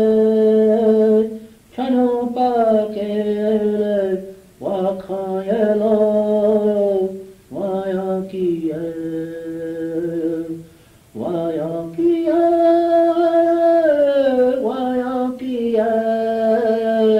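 Unaccompanied voice singing a chant in long held phrases that each slide and step down in pitch, with short breath pauses between them, heard on a hissy old cassette tape.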